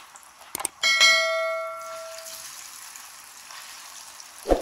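Potato cubes sizzling in hot oil in a frying pan. About a second in there are a couple of clicks, then a bright bell ding that rings out for about a second and a half, from a subscribe-button animation's sound effect. A knock comes near the end.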